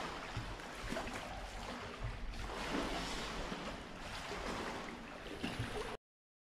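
Water sloshing and splashing around people in the water, a steady rush with a few small splashes; it cuts off suddenly near the end.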